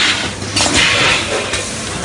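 Automatic flour pouch packing machine running: hissing bursts about once a second over a steady low hum.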